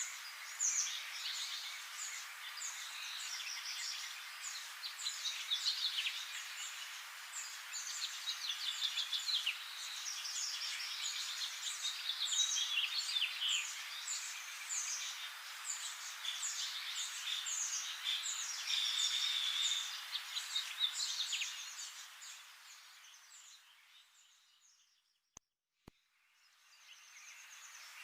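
A chorus of many small birds chirping and twittering at once, high-pitched. It fades out over a few seconds about 22 seconds in, leaving a brief near-silent gap with two faint clicks, then fades back in near the end.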